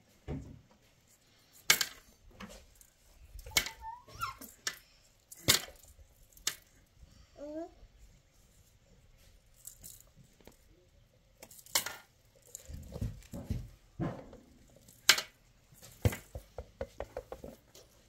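Irregular sharp knocks and clatter of hard objects, with a quick run of light taps near the end. Two short rising cries, from a voice or an animal, come in between.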